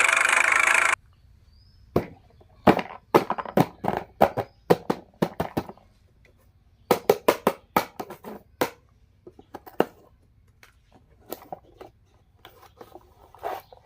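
A toy vehicle's loud electronic engine sound cuts off suddenly about a second in. Then come quick clusters of sharp clicks and knocks from hard plastic toys and packaging being handled, thinning out to scattered light taps near the end.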